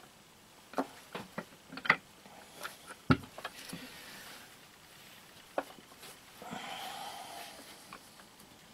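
Small clicks and knocks of clear plastic frame parts and a bolt being handled and fitted by rubber-gloved hands, the loudest knock about three seconds in, with a rubbing sound lasting about a second near six and a half seconds in.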